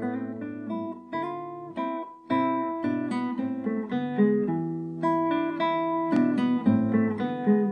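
Guitar music, chords plucked and strummed with a fresh chord every second or so.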